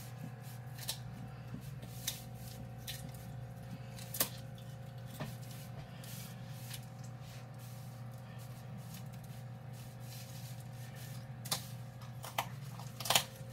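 Poultry shears cutting along a raw chicken's backbone: irregular sharp snips and little cracks of bone every second or two, over a steady low hum.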